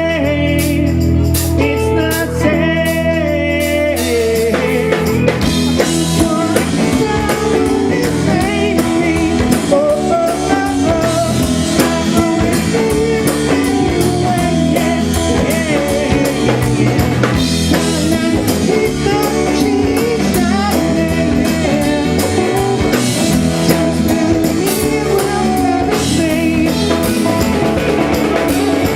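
Live rock band playing a full-band song: electric guitars and drum kit with a sung lead vocal, loud and steady.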